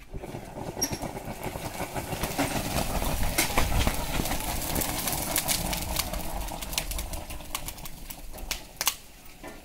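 Thermite charge reacting in a crucible over a rail joint, the aluminothermic rail-welding reaction: a dense rushing hiss full of sharp crackles and pops. It builds for about three and a half seconds, then slowly dies away near the end.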